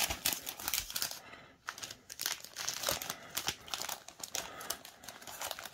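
Thin clear plastic kit bag crinkling irregularly as it is handled, with a brief lull a little over a second in.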